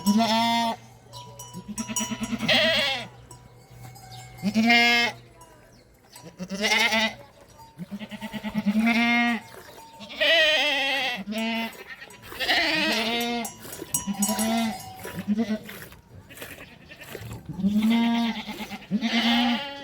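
A flock of sheep and goats bleating: about ten loud, wavering calls in quick succession, some of them overlapping.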